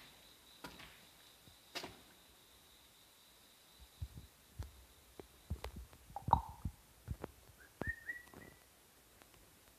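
Faint, scattered knocks and low thumps from someone moving about with a handheld camera, the loudest about six seconds in. A faint steady high whine runs through the first half, and a brief high squeak comes about eight seconds in.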